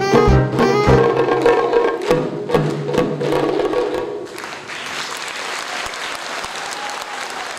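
A saxophone and a group of drums end a piece: a held saxophone note over the last drum strokes, stopping about four seconds in. Audience applause follows and slowly fades.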